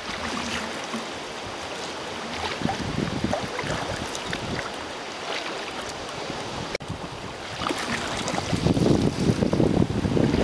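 Choppy sea water splashing and lapping against a sea kayak's hull, with wind buffeting the microphone and rumbling louder in the last couple of seconds.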